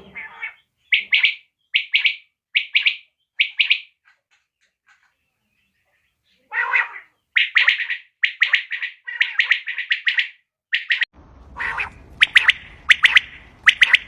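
Quail calling: short, sharp call notes repeated in quick series, about one call a second, with a pause of a couple of seconds in the middle. A hiss and low hum come in under the calls near the end.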